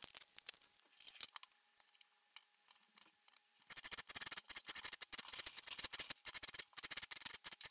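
A lime rubbed quickly against a metal box grater, a dense run of rapid rasping strokes that starts about halfway in as the zest is grated off. Before that, a few light clicks and knocks.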